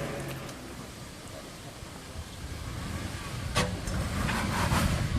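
Jeep Wrangler engine running low on a rock-crawling climb, the rumble easing off early and building again through the second half. There is a sharp click about three and a half seconds in.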